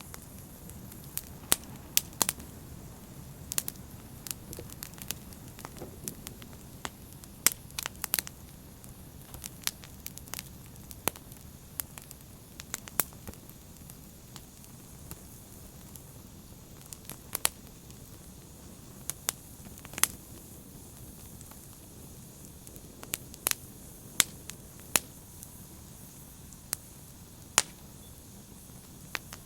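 Open fire crackling: irregular sharp pops and snaps, several loud ones, over a steady low rumble of burning.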